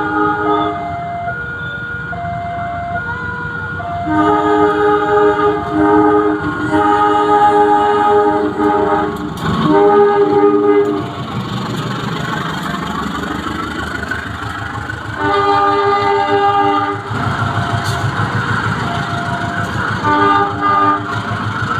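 Indonesian CC 201 diesel-electric locomotive sounding its multi-tone chord horn in a series of long blasts: three close together, then two more spaced out. Between the blasts the train's low rumble builds as it passes, with a short repeating two-note electronic chime in the background.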